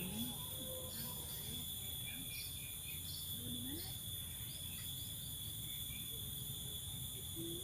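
A chorus of insects, crickets among them, makes a continuous high-pitched buzz with several steady tones. Short chirps are scattered over it, and a low steady rumble runs underneath.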